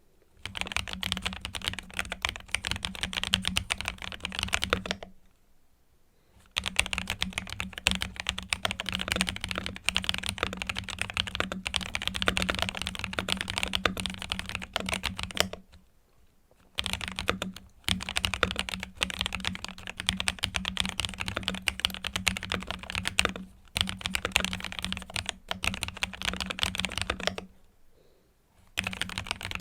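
ASUS ROG Azoth gasket-mounted mechanical gaming keyboard with pre-lubed switches, being typed on fast in a typing-sound test. Dense runs of key clacks are broken by a few brief pauses.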